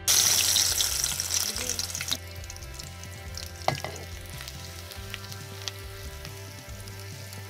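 Sliced onions frying in hot oil in a metal pot. A loud sizzle starts suddenly and dies down over about two seconds into steadier, quieter frying, with a few knocks of a wooden spatula as the onions are stirred.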